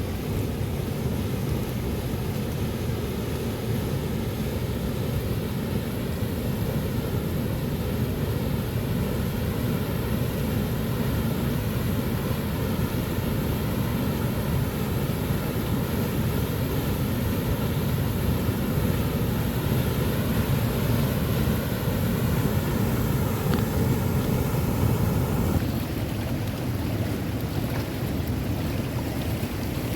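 Waterfall water rushing, a steady heavy noise that drops a little about 25 seconds in.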